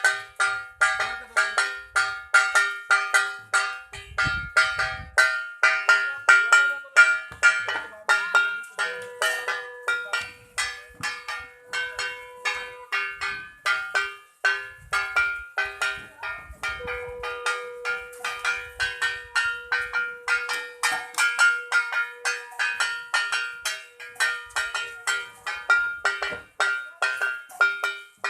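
Metal puja bells rung rapidly and without a break: a quick, even run of bright metallic rings, several strikes a second. A long steady note is held over them twice, once for about four seconds and later for about nine.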